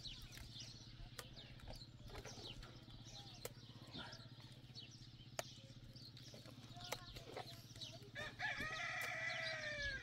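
A rooster crows once near the end, one long call, over small birds chirping and a few faint clicks.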